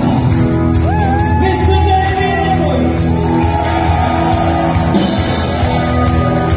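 Live rock band playing, with long held sung notes that slide up into pitch over the band's sustained chords.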